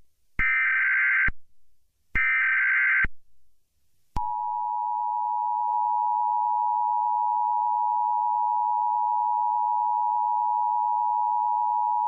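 Emergency Alert System alert tones. Two short bursts of SAME header data, each just under a second, are followed about a second later by the steady two-tone EAS attention signal, which holds for about eight seconds. Together they announce an emergency alert, here an earthquake warning.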